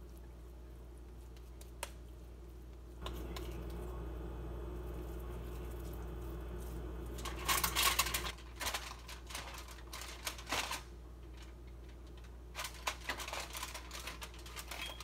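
Aluminium foil being crinkled and handled in irregular crackly bursts, loudest about halfway through and again near the end. A steady hum runs from about three seconds in until shortly before the crinkling peaks.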